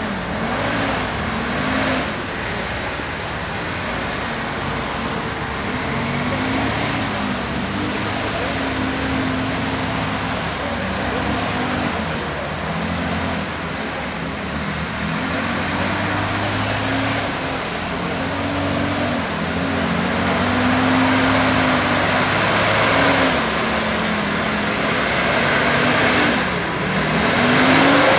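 Diesel engine of a wheeled forestry skidder working through deep mud, its revs rising and falling repeatedly as it manoeuvres. The engine gets louder near the end as the machine comes closer.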